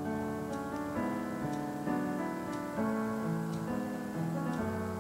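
Soft background piano music, its chords changing about once a second.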